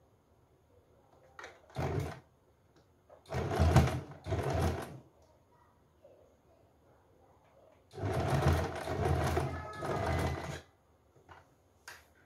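Sewing machine stitching in short start-stop runs, sewing down a folded hem over lace trim: a brief burst about two seconds in, two more around four seconds, then a longer run of about two and a half seconds.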